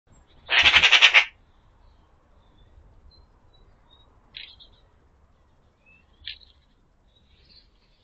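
Eurasian magpie giving a loud, harsh chattering rattle lasting under a second, about a second in. It is followed by two brief faint sounds a couple of seconds apart, with thin faint chirps of small birds behind.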